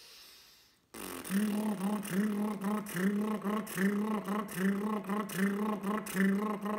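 Fast T-wa-ka rhythm buzzed with the lips alone, the didgeridoo embouchure without the instrument: an even, buzzy pulse of about two to three beats a second that starts about a second in.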